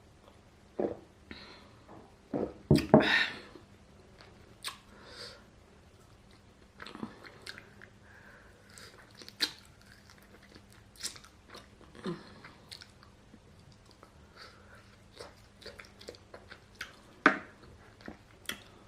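Close-miked eating: biting into and chewing grilled chicken, with scattered crunches and mouth clicks. The loudest bites come about three seconds in and again near the end.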